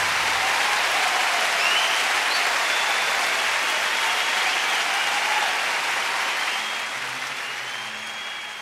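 Crowd applauding, fading away over the last couple of seconds.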